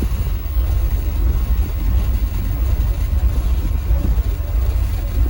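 Steady low rumble of a boat's engine running, with wind noise on the microphone.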